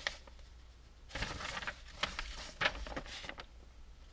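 Paper instruction sheets rustling as they are handled and opened out, in a few short spells, the first about a second in and more through the middle.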